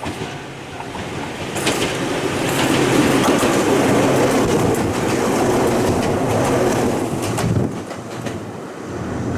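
Ohmi Railway electric train passing close by, its wheels clacking over the rail joints. The noise builds about a second and a half in and falls away near the end as the train goes by.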